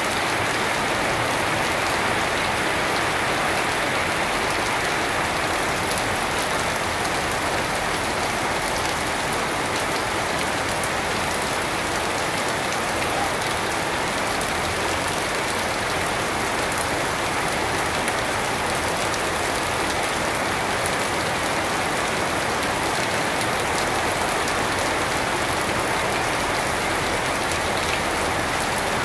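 Steady rain falling on trees, shrubs and a wet paved yard: an even, unbroken wash of rain with no thunder or other events.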